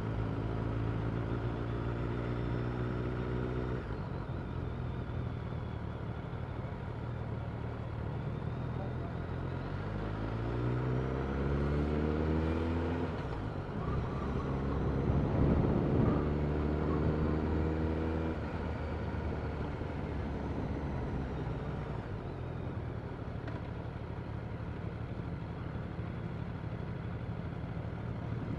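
Motorcycle engine running while under way, with wind rushing over the microphone. Partway through it revs up, rising in pitch, breaks off briefly as if for a gear change, then holds higher before easing off.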